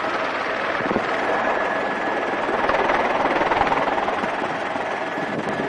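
Helicopter engine and rotor noise heard inside the cabin, a steady drone with a faint high tone, as the aircraft lifts off.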